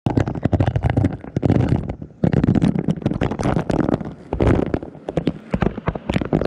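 Freeze-dried dog food pellets poured into a fabric collapsible dog bowl, rattling and knocking as they land close by, with low thuds and a dense run of irregular clicks.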